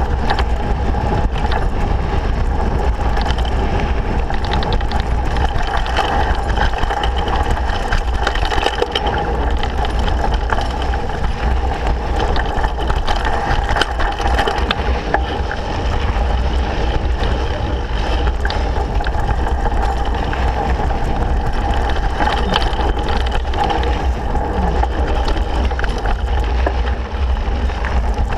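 Mountain bike riding fast down a rough dirt trail, heard from a camera mounted on the rider or bike: a steady, loud rumble of wind and tyres on the dirt, with frequent small knocks and rattles from the bike over the bumps.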